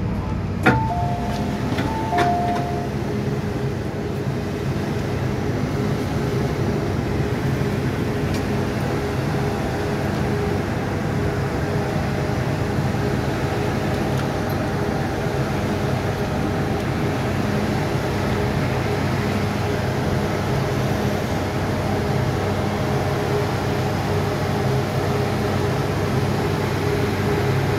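MTR M-Train door chime: after a click, a two-note ding-dong sounds twice, a higher note falling to a lower one, as the doors are about to open. A steady hum from the standing train follows.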